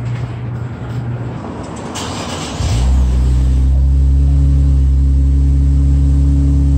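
Infiniti Q50S's 3.0-litre twin-turbo V6 on its stock exhaust, heard from behind at the tailpipes, cranks briefly and catches about two and a half seconds in. It then idles with a loud, steady low exhaust note.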